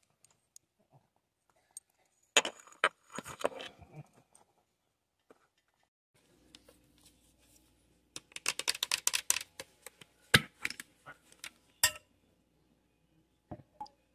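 A plastic coffee creamer bottle and a tumbler being handled, clicking and clattering. Scattered taps come first, then a quick run of rattling clicks about eight seconds in, then a few single sharp knocks.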